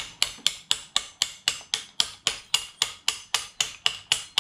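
Light metal-on-metal tapping, about four even taps a second, each with a short ring: a small hammer or tool tapping at the gudgeon (wrist) pin of a piston from a Yamaha Wave Blaster two-stroke jet-ski engine to drive it out.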